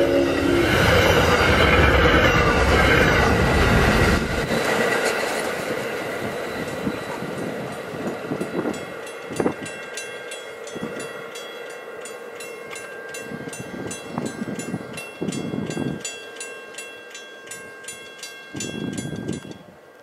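MBTA commuter train passing at speed through snow: the last of its horn blast cuts off just after the start, then the cars rush by with loud wheel and rail noise that fades as the train moves away. Once the train is gone, a grade-crossing bell keeps dinging at a steady rhythm, with a few brief low rumbles.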